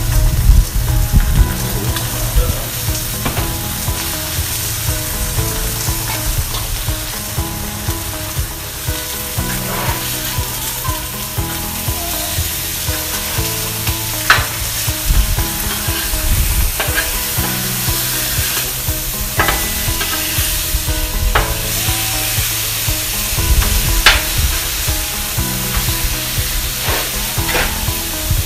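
Pork chops sizzling on a hot Blackstone flat-top steel griddle, a steady frying hiss. A few sharp clicks of tongs against the steel come as the chops are turned.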